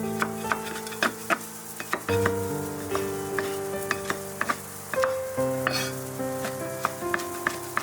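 Food sizzling in a pan while a utensil stirs it, with frequent short clicks and scrapes against the pan. Soft background music with held notes plays underneath.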